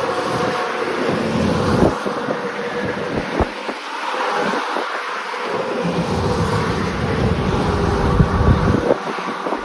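Wind buffeting the microphone in irregular gusts over a steady vehicle hum.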